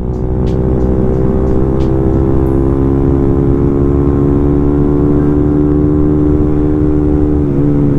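Suzuki Raider Fi single-cylinder motorcycle engine running at a steady cruising speed, its pitch held even, with a brief dip and recovery near the end.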